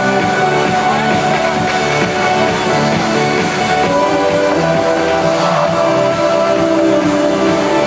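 Loud live music played over a concert sound system, with sustained held chords and no break.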